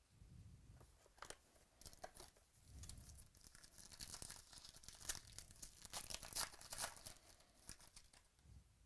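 Trading-card pack wrapper crinkling and tearing as it is opened by hand: a faint run of irregular crackles, busiest in the middle.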